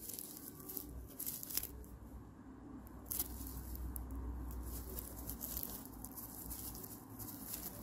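Raffia yarn crackling and rustling faintly as a crochet hook pulls loops through it, in scattered small crinkly ticks, with a faint low hum through the middle.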